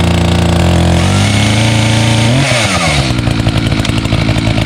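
Echo CS-590 Timber Wolf two-stroke chainsaw, cold and just started, running steadily at high idle. About two and a half seconds in, it revs up briefly and then drops to a lower, slower idle, the sign that the throttle squeeze has released the high-idle setting.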